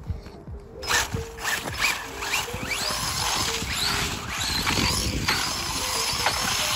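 Brushless electric motor of a Laegendary Sonic RC car whining upward in pitch again and again as the throttle is pulled, over a steady hiss of tyres on wet pavement. Faint background music with held notes plays underneath.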